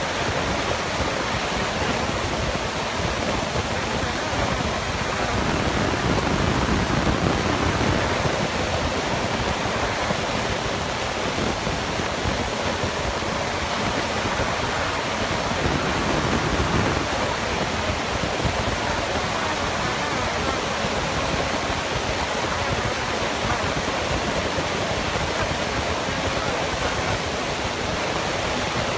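Excavator engine and hydraulics running steadily under load while the hydraulic demolition shear works scrap steel. A dense, even noise that swells louder about five seconds in and again around fifteen seconds.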